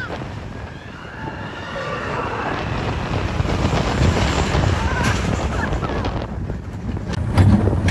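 Roller coaster train running fast along its track, with a low rumble and wind rushing over the phone's microphone; riders' voices rise and fall as shouts now and then. The rush grows louder near the end.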